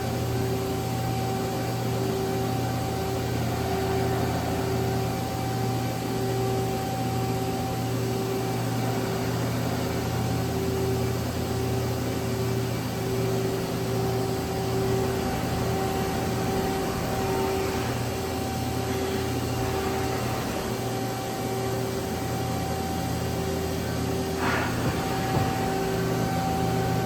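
Steady hum of running machinery with a constant drone, and a higher tone that pulses on and off about once a second. There is a brief sharp sound a few seconds before the end.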